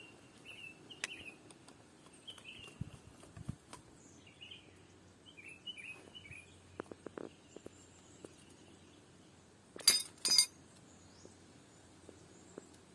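Quiet background with faint bird chirps and small scattered clicks and knocks, then two short, loud noises close together about ten seconds in.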